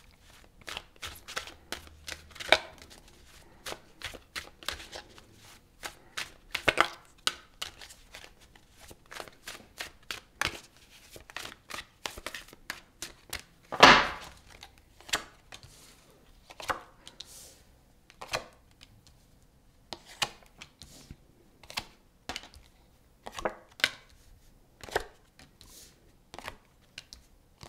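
Tarot cards being shuffled by hand, a run of short crisp riffles and card slaps, with the deck knocked down on the tabletop once about halfway through, the loudest sound; near the end, cards are flicked and laid down on the table one by one.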